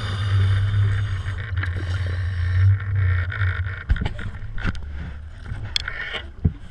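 Steady low mechanical hum heard underwater, fading out about four seconds in, followed by scattered sharp clicks and knocks.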